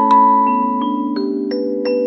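Background music: a slow melody of struck, ringing notes, about three a second, over held lower notes.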